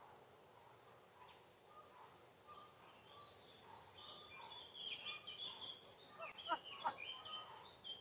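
Faint birdsong: small birds chirping and twittering, busier from about halfway, with a few sharp clicks near the end.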